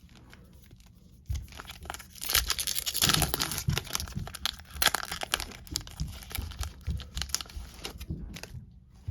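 A baseball card pack being torn open, its wrapper crinkling and crackling with a run of sharp rips. It starts about a second in, is loudest in the first few seconds, and tails off near the end.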